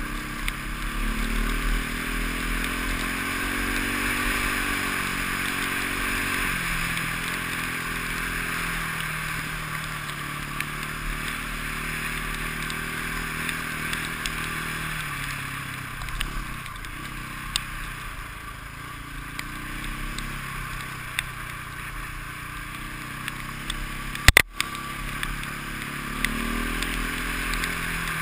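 KTM enduro motorcycle engine running under way, its pitch rising and falling with throttle and gear changes, over a steady rushing noise. One sharp knock near the end.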